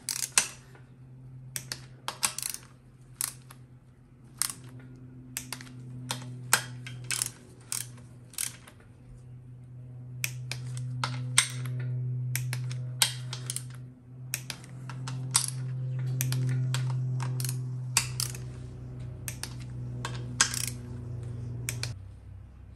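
Torque wrench clicking and ratcheting as the GM TH350 valve body bolts are torqued down to about 156 inch-pounds, with a string of sharp, irregular clicks. A steady low hum runs underneath and stops near the end.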